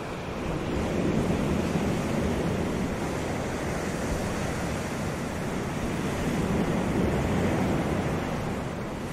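Atlantic surf breaking and washing onto the beach, swelling louder twice as waves come in.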